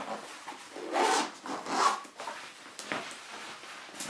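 Zipper on a Zeeksack fabric backpack being drawn in a few short rasping strokes about a second apart, with the bag's nylon fabric rustling as it is handled and lifted.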